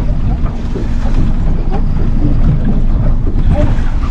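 Wind buffeting the microphone on a fishing boat at sea, a loud steady low rumble.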